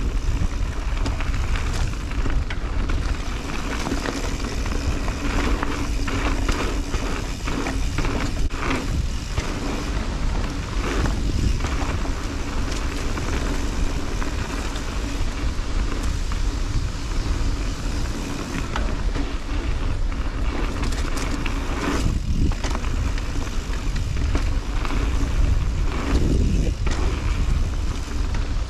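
2021 Santa Cruz 5010 mountain bike ridden along dirt singletrack: knobby tyres rolling over the trail, with frequent knocks and rattles from the bike over bumps. A steady low rumble of wind on the microphone runs under it.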